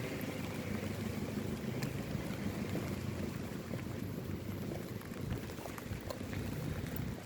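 Steady rain falling, with a dense hiss, scattered sharp drop ticks and a low rumble underneath.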